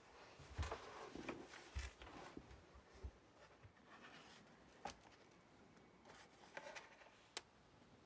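Faint handling of a hardback sketchbook as it is lifted off a wooden table easel and opened: soft rustling of cover and pages, a few dull knocks in the first three seconds and a couple of sharp clicks later on.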